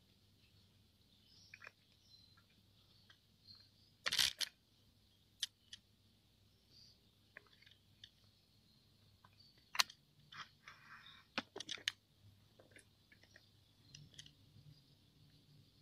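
Sharp clicks and knocks of a phone being turned on its tripod, the loudest about four seconds in and a cluster between ten and twelve seconds in, over a steady high chirring of crickets.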